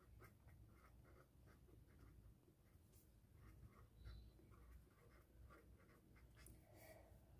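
Faint scratching of a pen writing on paper, in many short strokes.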